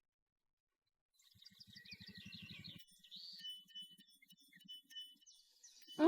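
Faint birdsong: small birds chirping in short, repeated high notes. A low, rapid pulsing sound runs under them for about a second and a half near the start.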